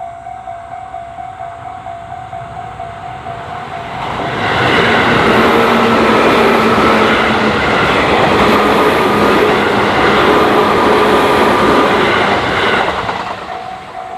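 Level-crossing warning bell ringing in a rapid, repeating ding, then an electric commuter train of the Tobu Tojo Line passing loudly over the crossing from about four seconds in, with steady tones through the run. It fades near the end and the bell is heard again.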